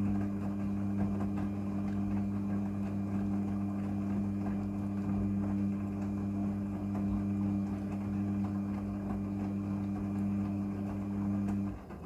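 Midea front-loading washing machine turning its drum with a load of clothes tumbling inside: a steady motor hum under the noise of the tumbling wash. It cuts off suddenly near the end as the drum stops.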